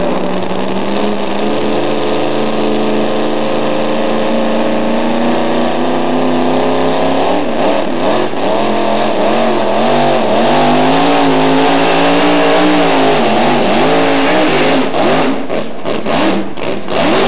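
Supercharged engine of a two-wheel-drive pulling truck running hard at full throttle under the load of a pulling sled. Its pitch holds steady at first, then wavers and dips from about halfway, and it cuts in and out several times near the end.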